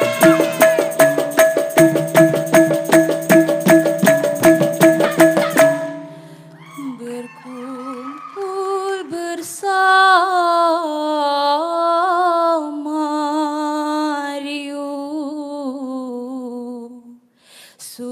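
Traditional Malay ensemble music: group voices over a fast, even percussion rhythm of frame drums, about four strikes a second, which stops abruptly about six seconds in. A solo woman's voice then sings a slow, ornamented, unaccompanied line.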